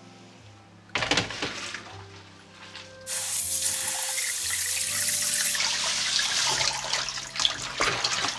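Kitchen tap running into a stainless-steel sink, water splashing over blanched soybean sprouts in a plastic colander as they are rinsed. There is a first short splash about a second in, and the tap runs steadily from about three seconds in.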